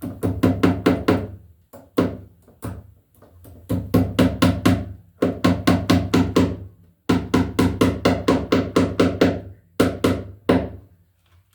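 Hammer driving the nails of a plastic nail-on cable staple into a wooden running board to fasten 12/2 NM cable, in quick runs of ringing strikes about six a second, broken by short pauses and a few single blows.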